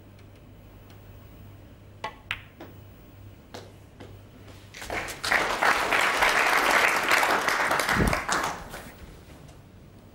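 A few sharp clicks of snooker balls being struck and colliding about two seconds in, then audience applause for about four seconds.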